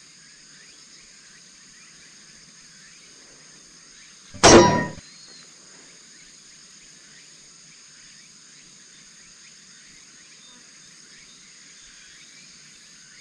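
Steady high-pitched chirping of crickets or other autumn insects, with one brief, loud sound about four and a half seconds in.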